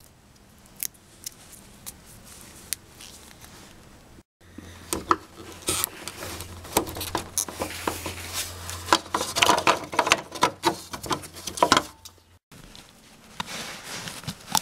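Clicks and scrapes of a tape-wrapped flat screwdriver prying a plastic license plate lamp out of its recess, and of the lamp being handled. A low hum sits under the busier middle stretch, and the sound drops out briefly about four seconds in and again near the end.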